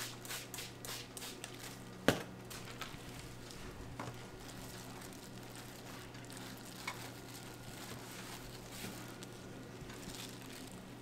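A trigger spray bottle misting water in quick squirts, about four a second, stopping after a second and a half; a sharp knock about two seconds in, then faint handling sounds over a steady low hum.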